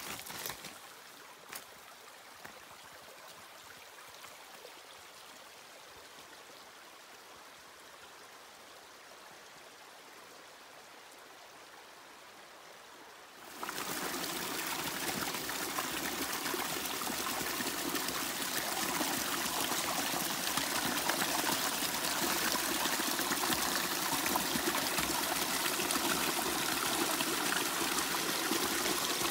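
South Fork Skokomish River flowing: a faint, even rush of water, which about halfway through jumps suddenly to a much louder, closer, steady rushing of the current.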